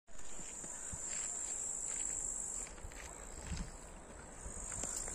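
An insect singing in the grass: a steady high-pitched buzz that breaks off about halfway and starts again near the end, over faint low rumble and a few small ticks.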